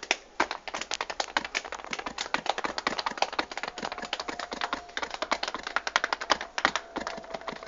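Rapid, irregular tapping clicks, many a second, with a faint steady tone coming in about four seconds in.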